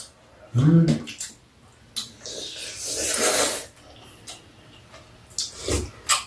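People eating noodle soup: a long loud slurp about two seconds in, with a few light clicks of spoon and chopsticks against bowls and a brief vocal sound near the start.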